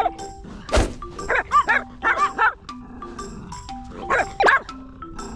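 Small dog barking in bursts of short, high yaps during rough play with another dog, over background music of short, evenly pitched notes. A single knock comes about a second in.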